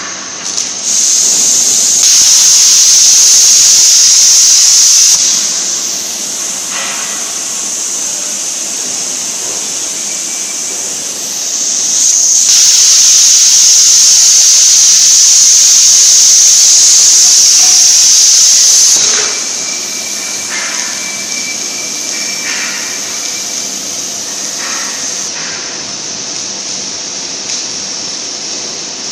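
CNC gantry plasma cutter's torch cutting steel plate, the plasma arc giving a loud, high-pitched hiss. The arc runs in two stretches: from about a second in to about five seconds, and from about twelve to nineteen seconds. A softer steady hiss fills the gaps between and after.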